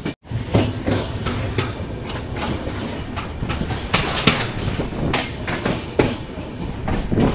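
Passenger coach wheels clattering over rail joints and points as an express train runs into a station. A steady rumble carries sharp irregular clacks, the loudest about four seconds in.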